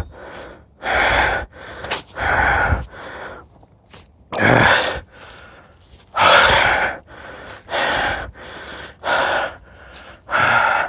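A man breathing hard, with heavy rasping breaths about every second and a half: he is winded after a long uphill climb on a mountain bike.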